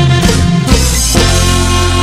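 A regional Mexican band recording a son. Rhythmic playing with drum hits breaks off about a second in, into a long held chord that rings on.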